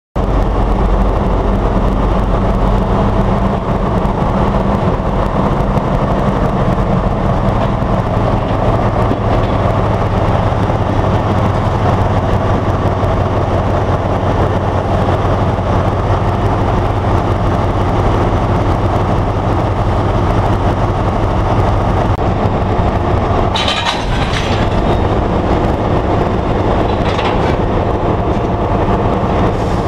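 Diesel locomotive running steadily at close range, a low, even drone. About three quarters of the way through there is a brief sharp noise, and two shorter sharp sounds come near the end.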